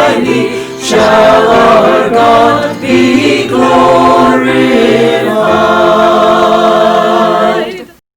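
Mixed choir singing a hymn a cappella in several parts, a few sung phrases ending on a long held final chord that stops just before the end.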